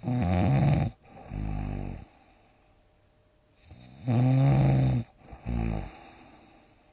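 A sleeping person's loud snoring: two rounds, each a loud rattling snore of about a second followed by a shorter, softer one, with quiet breathing gaps between.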